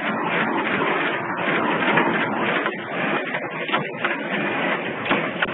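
Automatic through-hole component insertion machine running: a continuous, dense mechanical clatter.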